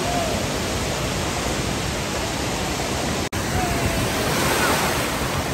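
Steady rushing of wave-pool water, with faint voices of swimmers; the sound cuts out for an instant about three seconds in, then the same rushing carries on.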